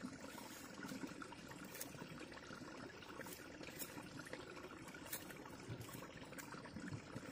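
Knife cutting pieces off a chayote held in the hand, a short crisp cut roughly every second, over a steady background hiss.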